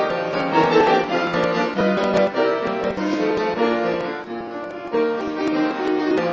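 Background instrumental music: piano with bowed strings playing a melody.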